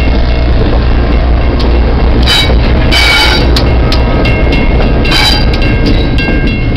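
Passenger car and diesel locomotive of an excursion train rolling past at close range: a steady heavy rumble with clicks of wheels over the rails. Brief high-pitched squeals come about two and three seconds in and again around five seconds in.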